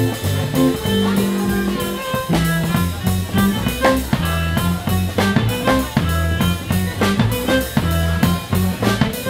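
Live swing-jazz quartet playing: violin, electric guitar, double bass and drum kit, with the bass walking under drum hits and the melody.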